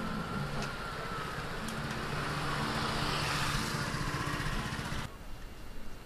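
A motor vehicle passing close by on the street, its engine hum and tyre noise swelling to a peak about three and a half seconds in; the sound cuts off suddenly about five seconds in, leaving quieter street ambience.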